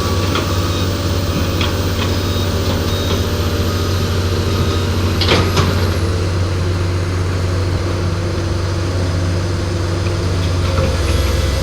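Heavy diesel engine running steadily at a low drone, with a few light knocks and a louder clatter about five seconds in.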